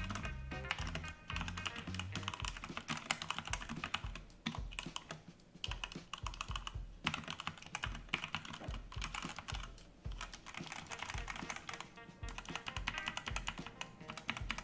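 Typing on a Redragon Fizz Pro mechanical keyboard with red switches: fast runs of keystroke clacks broken by brief pauses.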